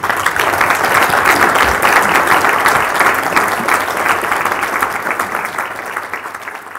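Audience applauding, a dense patter of many hands clapping that starts abruptly and eases off near the end.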